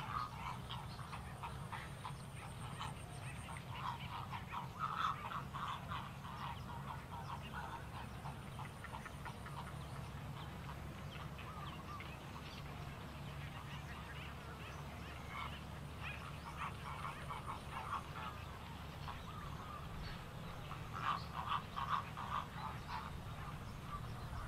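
Wetland animal calls: bursts of rapid short notes, loudest near the start, around five seconds in and again around 21 to 23 seconds in, over a steady low hum.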